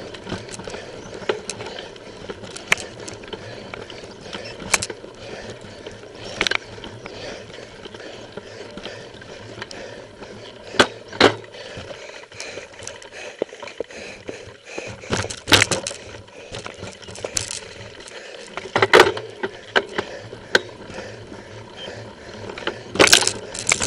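Mountain bike ridden over rough forest singletrack, heard from its handlebar: a continuous clatter of the bike's parts, broken by irregular sharp knocks as it hits bumps.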